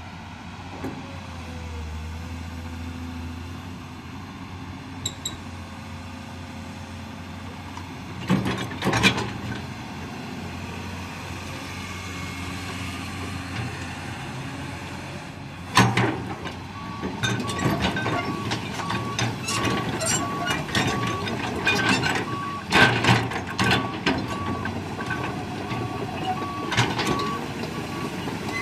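Komatsu PC200LC-7 excavator's diesel engine running as it works its hydraulics, with loud metal clanks around nine and sixteen seconds in and many more after. From about seventeen seconds in, its travel alarm beeps in a steady rhythm, the sign that the excavator is tracking.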